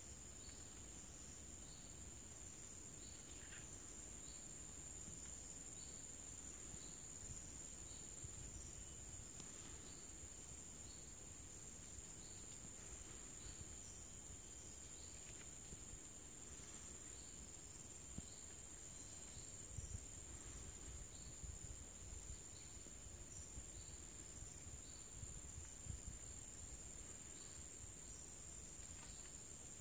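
Steady high-pitched insect drone from the surrounding vegetation, with a second faint chirp repeating a little faster than once a second.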